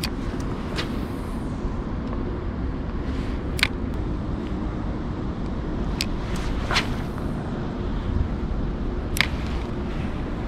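Steady low rumble of wind on the microphone, with about six short, sharp ticks scattered through.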